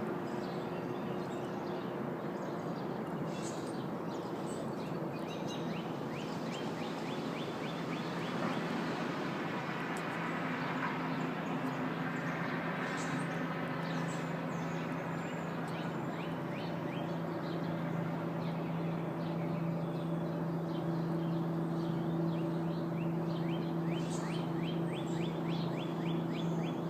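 A steady, unbroken low hum like a jet engine, with a few steady low tones under a wash of noise, growing slightly louder partway through. Birds chirp over it in quick runs of chirps several times.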